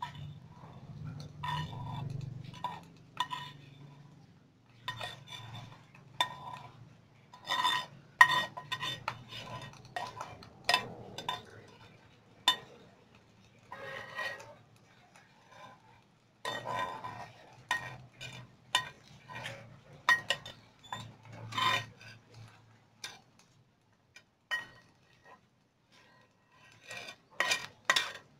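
Metal spatula scraping and clinking against a small frying pan and a metal strainer as scrambled egg is scraped out, in irregular, ringing metallic clinks and scrapes. The clinks thin out about two-thirds of the way through, then come back in a quick cluster near the end.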